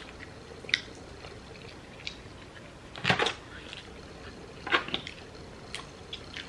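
Eating a spicy seafood boil by hand: crab and shrimp shells cracking and crunching, with chewing. Sharp cracks come every second or so, the loudest cluster about three seconds in and another near five seconds.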